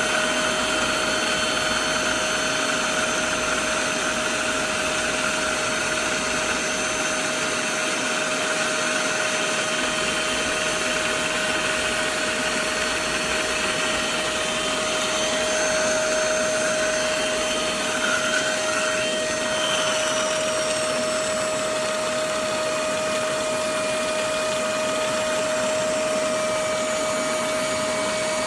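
Hoover CleanSlate portable carpet and upholstery spot cleaner's motor running steadily: a constant whine over a rushing suction noise.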